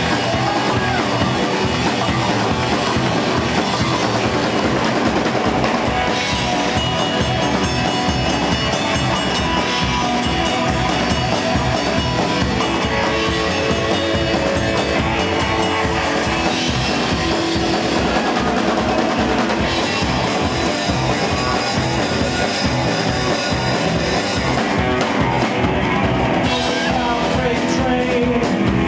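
Live rock band playing: upright bass, electric guitar and a drum kit keeping a steady beat.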